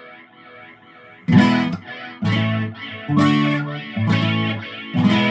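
Electric guitar chords strummed through a small VOX amp with its delay effect set to a slow rate, about five chords a second or so apart, with fainter echo repeats trailing between them.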